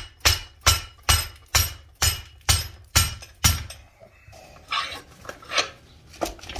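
An orange mallet strikes the seized, heated exhaust brake's lever again and again to break the stuck shaft loose, with about nine sharp blows at roughly two to three a second. After that come softer, irregular knocks and clinks of metal.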